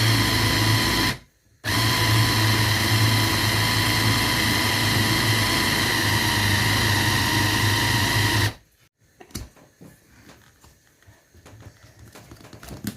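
Electric blender motor running loaded while blending a thick chicken, potato and breadcrumb mixture. It stops for about half a second about a second in, restarts, and is switched off about two-thirds of the way through, leaving only faint small handling sounds.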